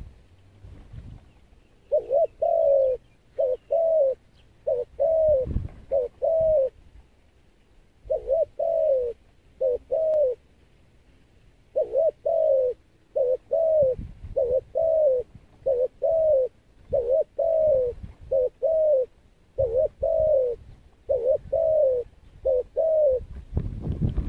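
Spotted dove cooing: soft, arched coo notes repeated in short phrases of two or three, with pauses of about a second between phrases.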